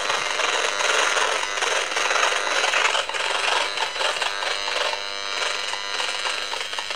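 EMFields Acousticom 2 RF detector's speaker howling and clicking in a dense, continuous buzz: the meter's audio rendering of a strong pulsed microwave signal, which the owner takes for a directed-energy beam aimed at her.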